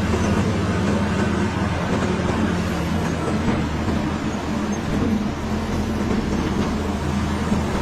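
Caterpillar bulldozer's diesel engine running steadily under work.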